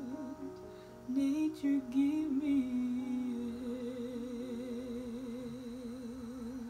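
A woman's voice singing long, wordless held notes with a wide, even vibrato.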